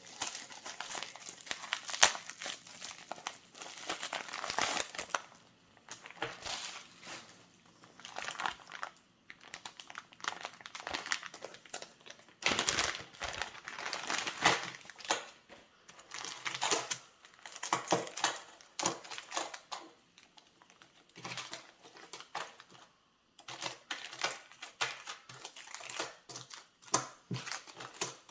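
Plastic packaging crinkling and rustling in irregular bursts as small parcels are handled and opened, with short pauses between.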